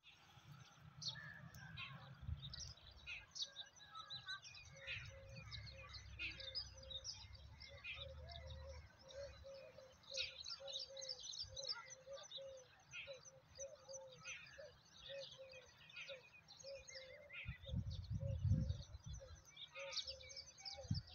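Several birds chirping, over a short, low note repeated about twice a second. Wind buffets the microphone in gusts, loudest about three seconds before the end.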